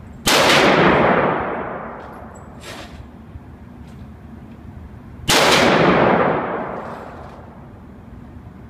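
AR-15 pistol firing two single shots about five seconds apart, each a loud crack followed by a long echo in an indoor shooting range. A fainter sharp crack comes between them.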